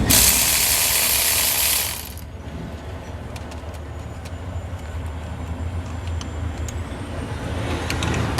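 A pneumatic tool hisses steadily for about two seconds and cuts off abruptly. A few light metallic clicks and clinks of parts being handled follow over a low hum.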